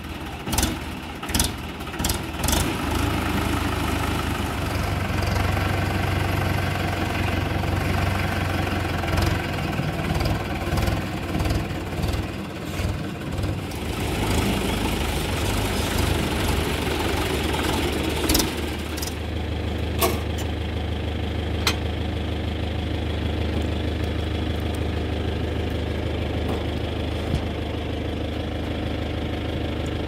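Swaraj 843 XM tractor diesel engine idling with a steady low hum. A few sharp knocks sound in the first few seconds, and the running gets louder and rougher for a few seconds about halfway through.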